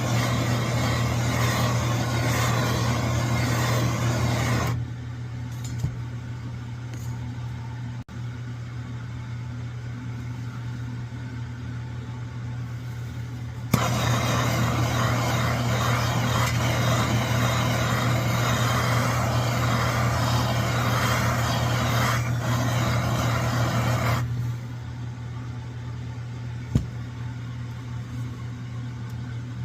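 Pressurized liquid-fuel camp stove burners lit and burning with a steady rushing hiss over a low hum. The level jumps abruptly louder and quieter, stepping down about 5 s in, up about 14 s in, and down again about 24 s in.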